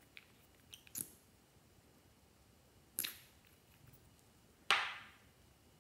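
Plastic clicks and snaps from a Hold Live lip gloss tube being handled and its cap twisted and pulled: a few light clicks in the first second, a sharper snap at about three seconds, and the loudest snap near the end, trailing off briefly.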